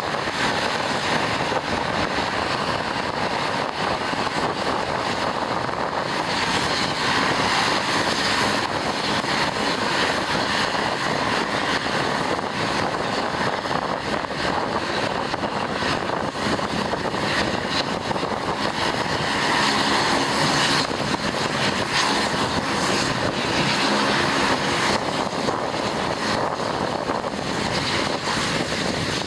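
ShinMaywa US-2 flying boat's four turboprop engines running as it taxis on the water, a steady propeller drone. A low propeller tone stands out more in the later part.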